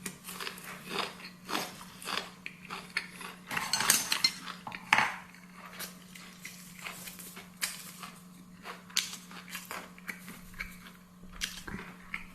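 A person eating close to the microphone: chewing and mouth sounds with many short clicks of utensils against dishes, scattered irregularly. A faint steady hum runs underneath.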